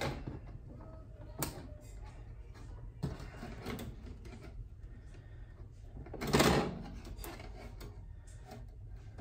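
Wire wreath forms and plastic zip ties being handled on a tabletop: scattered light clicks and rattles, with one louder scraping rattle lasting about half a second around six seconds in.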